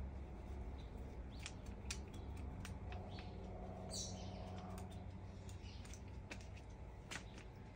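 Faint scrapes and ticks of a small hand trowel digging in garden soil, over a steady low hum. A short high chirp comes about four seconds in.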